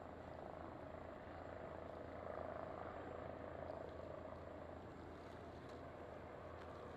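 Faint, steady rotor and turbine noise of a Eurocopter EC135 helicopter flying past at a distance, swelling a little a couple of seconds in.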